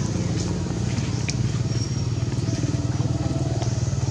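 A small engine running steadily at an even, low idle, with a few faint ticks over it.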